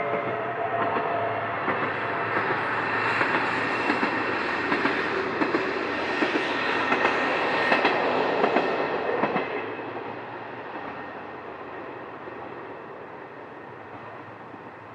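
Sanriku Railway diesel railcar passing, its wheels clicking over the rail joints. It grows to its loudest about eight seconds in, then fades away.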